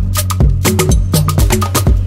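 Background music with a steady percussion beat over a bass line.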